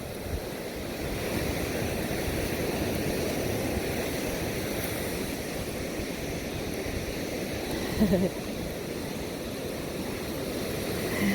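Ocean surf washing up on a sandy beach, a steady rushing that swells about a second in. A brief voice is heard once, near the end.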